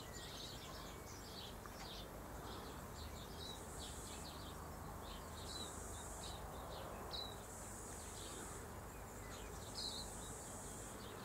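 Sparrows chirping, many short chirps in a steady string. A faint high hiss swells and fades about every two seconds behind them.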